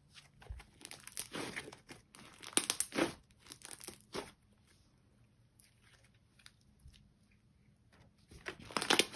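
Hands squishing, stretching and pulling apart a soft, puffy clay slime, giving quick crackly tearing and crinkling pops. The pops come in flurries for the first four seconds, die down to a few faint ticks, and pick up again near the end.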